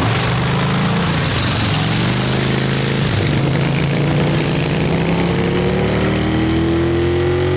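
Harley-Davidson motorcycle's V-twin engine accelerating away, its note dipping and then climbing in pitch with each gear change, with a long steady rise near the end.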